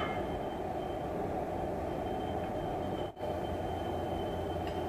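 Steady machinery noise in an iron-pipe factory: a constant low rumble with a thin steady whine above it. It cuts out for an instant a little after three seconds in.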